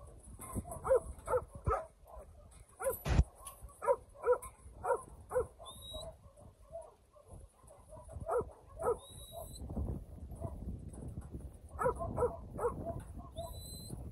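Working sheepdog barking at penned sheep in short runs of two to five barks with pauses between. There is a single sharp knock about three seconds in.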